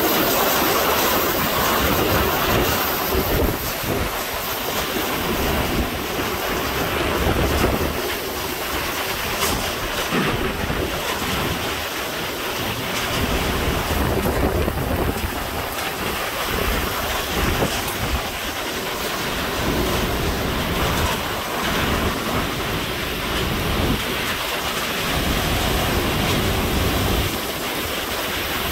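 Wind and driving rain of a Category 3 hurricane: a loud, dense rushing that swells and eases in gusts, with wind buffeting the microphone in uneven low rumbles.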